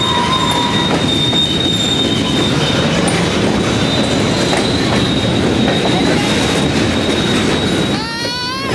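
Freight train rolling past close by: steady loud rumble of steel wheels on the rails with a thin, steady high wheel squeal. Near the end, a brief wavering high squeal.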